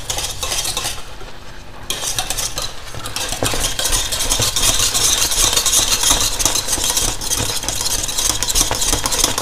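Wire whisk stirring a thick pea-flour and beet paste in a stainless steel saucepan, rapid wet scraping against the pan sides and bottom. It dips for about a second near the start, then goes on briskly and steadily. The paste has cooked into a thick, even mass.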